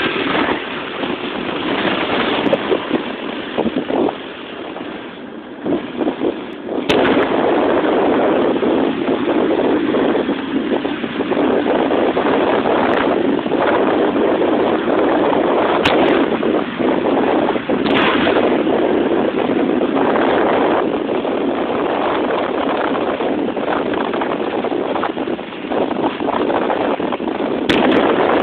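Heavy wind buffeting on the microphone of a phone carried at road speed, over the running of small underbone motorcycle engines. The rush is steady and loud, eases for a couple of seconds about five seconds in, and has a few sharp knocks.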